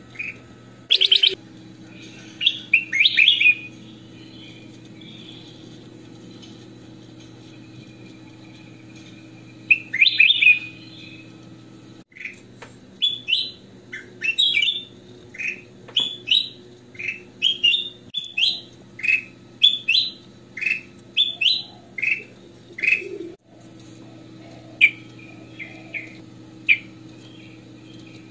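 Caged ruby-throated bulbul (kutilang emas) singing clear, chirpy whistled phrases. Short bursts come a few seconds in and again around ten seconds, then a long run of quick notes about one or two a second from twelve seconds on. A brief rattle comes about a second in, and a low steady hum runs underneath.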